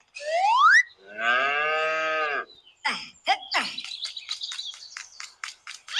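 Cattle mooing, a short rising call then a longer one, followed by a run of quick bird chirps, about five a second.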